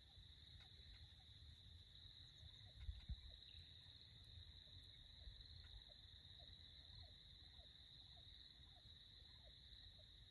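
Near silence: faint outdoor field ambience with a steady high-pitched chorus and low wind rumble, and two soft low thumps about three seconds in.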